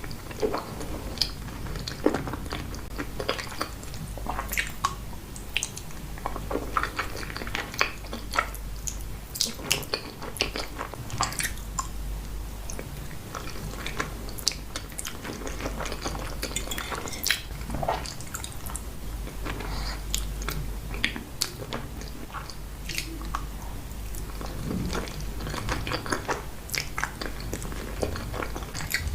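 Close-miked chewing of creamy pasta: continual wet smacking and mouth clicks, irregular and dense.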